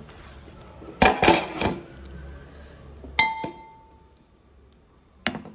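Large aluminium pot lid clattering against the rim of a big cooking pot several times about a second in, then struck once so that it rings with a clear fading metallic tone, and knocked again near the end, as it is set in place to seal the biryani pot for dum steaming.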